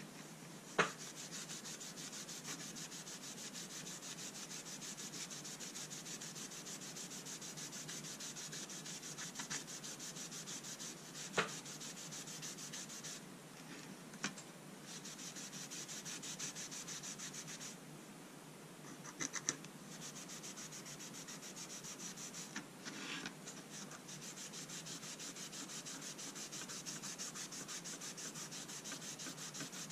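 An alcohol wipe rubbed back and forth along a boxwood and brass folding rule: a steady scrubbing hiss with a couple of short pauses. A few sharp clicks stand out, the loudest about a second in and about 11 seconds in.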